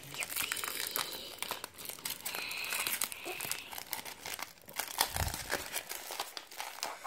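Foil Pokémon card booster pack wrapper crinkling and tearing as it is worked open by hand, with a dull thump about five seconds in.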